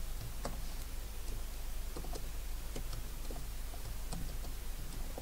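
Computer keyboard typing: scattered, unhurried single keystrokes clicking at irregular intervals, over a low steady hum.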